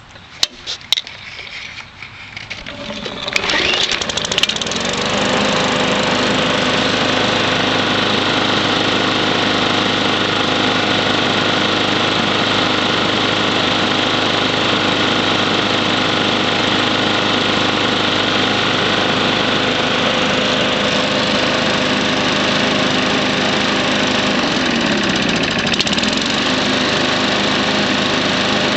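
Murray side-discharge push mower's gas engine starting: a few clicks, then it catches about three seconds in, picks up speed and settles into a steady run. Near the end its speed sags briefly and recovers.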